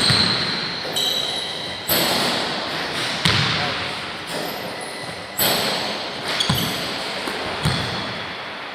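Basketball being dribbled and shot on a gym's hardwood court: about six sharp ball knocks, irregularly spaced, each echoing through the large sports hall, with short high squeaks of sneakers on the floor at several of them.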